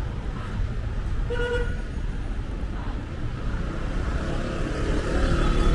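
Street traffic: a steady low rumble of idling and slow-moving cars, with a short car horn toot about a second and a half in.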